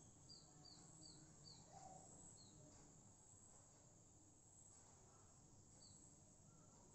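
Near silence with faint bird chirps: short, high, falling chirps, four in quick succession in the first second and a half, then one more and another near the end, over a steady faint high hiss.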